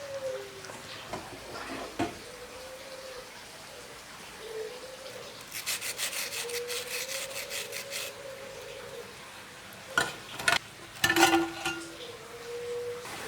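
Cooking sounds: a quick run of scraping strokes, like a utensil stirring in a pot, for a couple of seconds midway, then a few sharp knocks and a short clatter of kitchenware near the end. A soft, low wavering tone comes and goes underneath.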